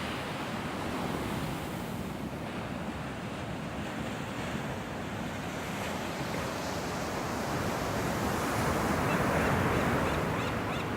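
Ocean surf: a steady rush of waves washing on the shore, swelling to a louder wash about eight seconds in and easing off again. Wind buffets the microphone.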